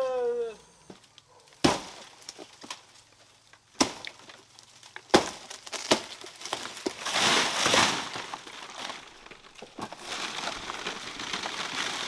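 Dry palm fronds and foliage being broken off and pulled, a few sharp cracks in the first half, then a longer stretch of rustling and crackling leaves.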